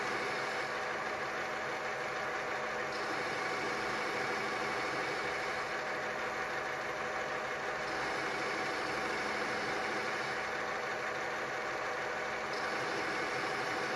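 Lathe converted to CNC, its inverter-driven spindle running steadily while the cutting tool takes a turning pass on the workpiece: a continuous machine hum with a few steady tones and a cutting hiss, without a break.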